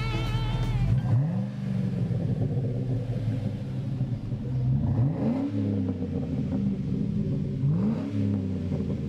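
GMC Sierra pickup's engine running through a custom aftermarket exhaust with a Magnaflow muffler, idling and blipped three times, each rev rising and dropping back to idle: about a second in, about five seconds in, and near the end. Guitar rock music cuts off about a second in.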